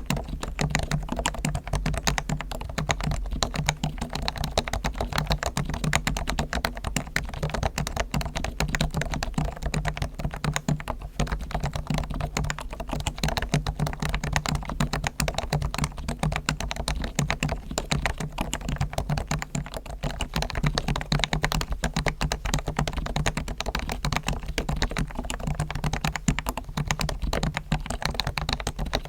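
Realforce R1 Topre capacitive keyboard being typed on continuously in fast, dense keystrokes. The springs and sliders are fully lubed with Krytox and the case is dampened with foam, for a smoothed, muted key sound.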